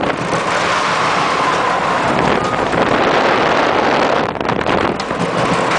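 Loud, steady rush of wind buffeting a phone's microphone as it rides round a Ring of Fire looping carnival ride, with a faint steady whine underneath at times.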